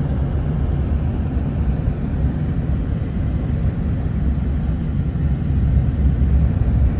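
Steady low rumble of road and engine noise inside a moving vehicle's cabin, driving on a snow-covered highway.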